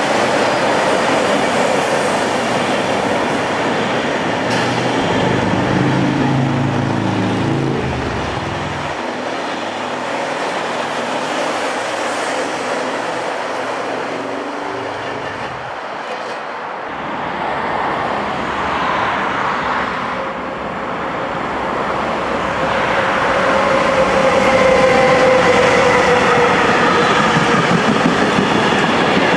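Trains rolling past in turn on a multi-track main line. First a TGV Duplex coupled nose-to-nose to a TGV Atlantique, then another TGV high-speed set, then a container freight train behind an electric locomotive, with the steady rumble and clatter of wheels on the rails. A falling whine comes in near the end.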